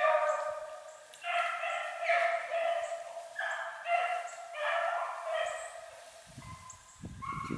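Hounds baying in a steady run of drawn-out, ringing bays, one after another, easing off about six seconds in. Such baying is the sign of hounds running a rabbit's trail.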